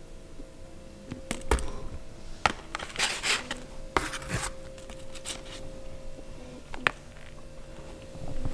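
Scattered knocks and short rustles of a cardboard pizza box and a paper plate being handled as pizza slices are taken out and set down, over a faint steady hum.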